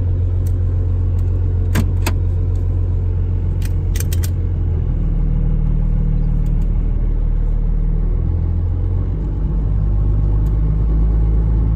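Straight-piped 12-valve Cummins 5.9-litre inline-six diesel running steadily as the truck sets off, its low note shifting about five seconds in. A few sharp clicks sound near the start.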